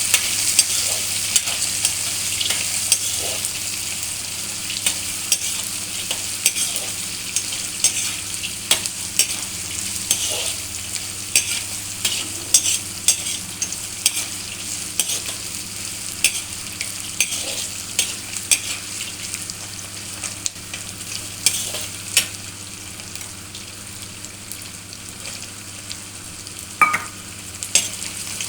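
Food sizzling in hot oil in a pan while a spatula stirs it, with frequent clicks and scrapes of the spatula against the pan. The sizzle eases a little in the second half, and there is one sharper scrape near the end.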